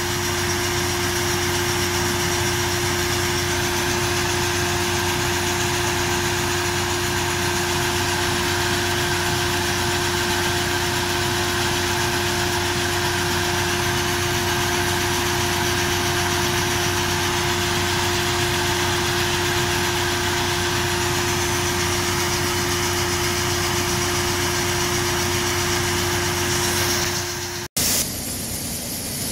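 Farm tractor engine running steadily at a fixed speed with a constant hum, driving a grain auger that carries grain from a truck up into a steel grain bin. The sound drops out for an instant near the end.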